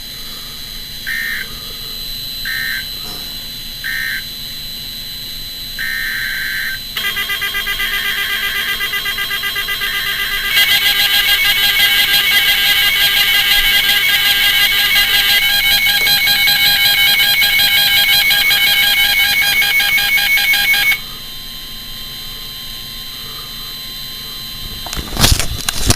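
NOAA Weather Radio emergency alert tones. A few short electronic data beeps come first, then a long, harsh warbling alarm signal starts about seven seconds in, grows louder around ten seconds and cuts off suddenly about twenty-one seconds in. A couple of loud knocks come near the end.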